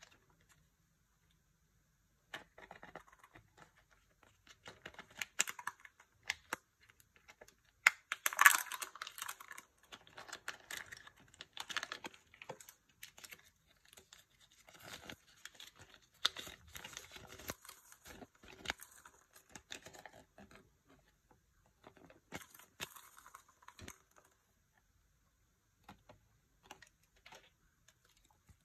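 Unwrapping a Kinder Joy egg by hand: the foil wrapper rustling and tearing, loudest about eight seconds in, then crinkling of a small paper leaflet. Near the end, a few light clicks of small plastic toy parts being handled.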